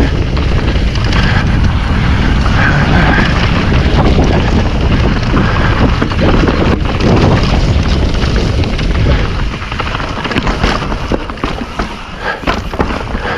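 Wind buffeting the microphone and a mountain bike's tyres rumbling over a rough trail at speed, easing off about nine seconds in to the clicks and rattles of the bike.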